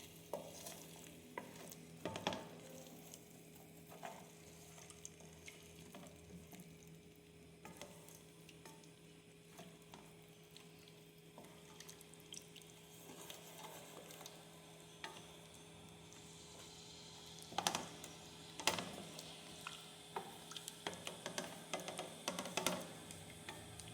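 Spoon stirring shrimp in coconut milk in a pan, with scattered scrapes and knocks of the spoon against the pan that come thicker in the second half, over a faint sizzle.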